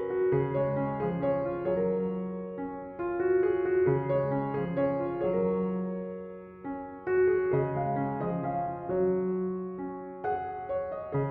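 Background piano music: a gentle instrumental piece of single notes and chords that strike and fade away.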